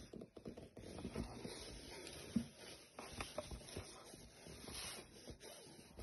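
Cardboard detergent box being handled and tipped over a washing machine's plastic detergent drawer: irregular rustling and scraping with small knocks, one sharper knock about two and a half seconds in.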